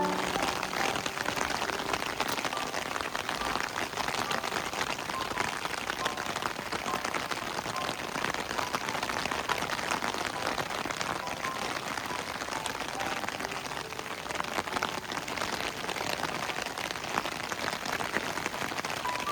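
Heavy rain falling steadily, a dense patter of countless small drops.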